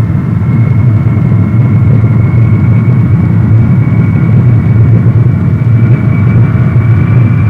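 Lockheed C-5A Galaxy's four General Electric TF39 turbofans at takeoff power during the takeoff roll: a loud, steady heavy rumble with a high turbine whine that rises slightly in pitch.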